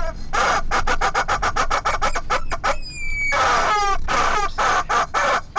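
Rubber chickens squeezed over and over: a fast string of short squeaks, broken by several long squawks that fall in pitch.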